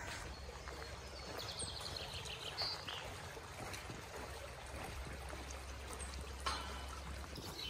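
Small forest brook trickling over mossy rocks.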